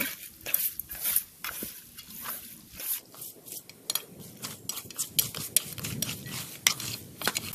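Wooden chopsticks stirring raw sliced pork with minced garlic and sauces in a pot: irregular clicks and taps of the chopsticks against the pot as the meat is turned over to mix the marinade.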